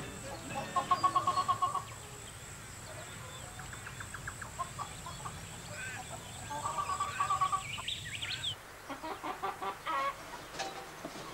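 Hens clucking and calling, with two runs of rapid, repeated cackling, about a second in and again about seven seconds in, and shorter single clucks between.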